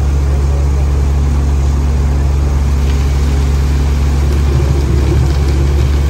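Heavy diesel construction machinery running steadily: a deep, constant engine hum that swells slightly about five seconds in.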